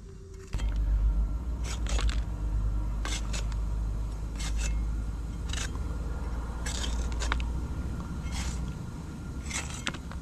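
Food being prepared by hand: irregular sharp clicks and scrapes of a knife and utensils being handled, over a steady low rumble that starts about half a second in.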